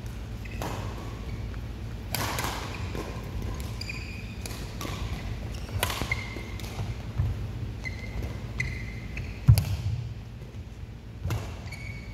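Badminton rally: sharp racket-on-shuttlecock hits every few seconds, with short squeaks of court shoes on the floor between them. The loudest hit, about nine and a half seconds in, comes with a heavy thud.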